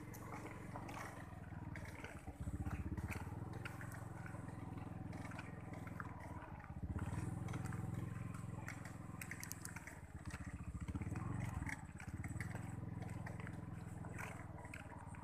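Small motorcycle engine running at low revs, swelling louder several times as the throttle opens (about two seconds in, around seven seconds and around ten seconds), with scattered clicks and rattles over it.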